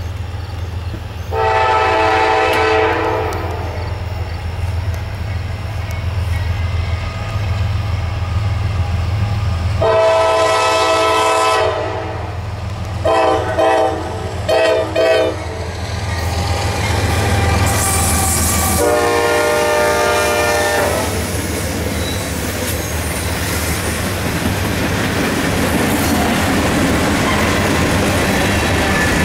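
Freight train locomotive's air horn sounding the grade-crossing signal: two long blasts, three short ones and a final long blast, over the low rumble of the diesel engine. Afterward the train's cars roll past with a clickety-clack of wheels on rail joints.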